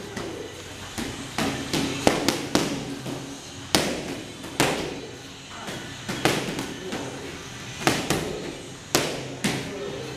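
Boxing gloves punching focus mitts: sharp slaps landing irregularly, often in quick combinations of two or three, about fifteen in all, with a short echo after each.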